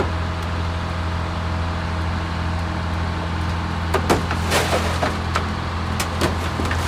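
Car crusher's power unit running with a steady low hum as the lid presses down on a Chevrolet Cavalier. From about four seconds in, irregular sharp cracks and crackling start as the car's body begins to give under the lid.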